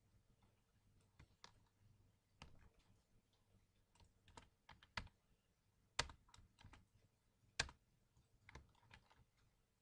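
Computer keyboard typing: irregular, quiet keystrokes, with a few sharper presses about five, six and seven and a half seconds in, over a faint low hum.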